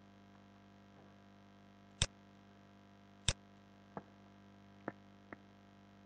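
Computer mouse clicks over a low steady electrical hum: two sharp clicks about two and three seconds in, then three softer ones.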